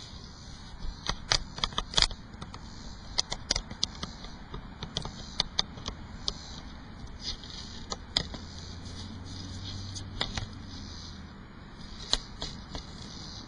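A steady high chorus of cicadas and crickets, broken by many sharp close clicks and crackles, loudest between about one and two seconds in. A low hum swells and fades between about eight and eleven seconds.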